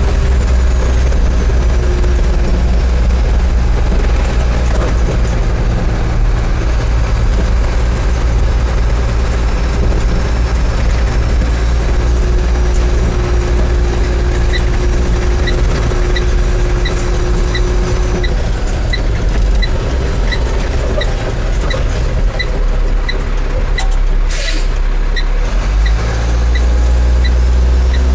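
The Cummins diesel engine of a 2005 Autocar Xpeditor garbage truck running under way, heard inside the cab. About halfway through, a turn-signal beeper starts ticking about twice a second. A short air hiss comes near the end.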